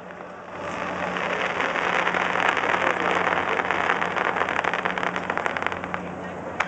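Fireworks crackling: a dense, rain-like patter of many rapid small pops from gold crackle and glitter effects. It builds about half a second in and thins near the end, where there is one sharp crack.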